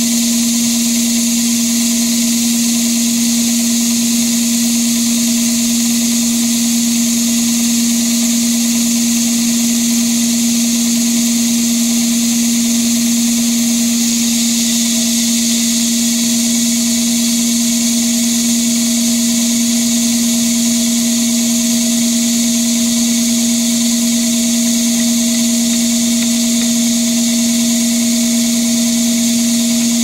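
Log band saw ripping a large log lengthwise, with a steady hum under the high hiss of the blade cutting through the wood, at an even level.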